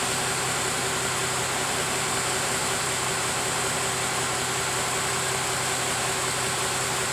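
Bus diesel engine idling steadily, with an even hiss of air or fan noise over it.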